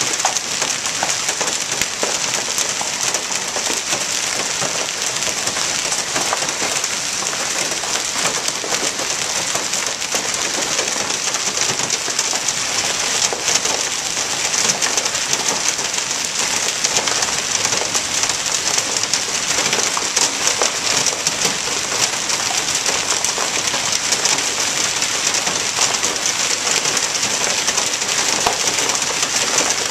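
Hail and rain pelting a Chevrolet truck, the tarp over its windshield and a concrete driveway: a steady, dense clatter of countless small ticks.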